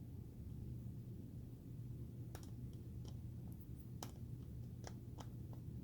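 Small irregular clicks of a Phillips screwdriver working the screw out of a plastic empty keg detector housing, starting about two seconds in, over a steady low hum.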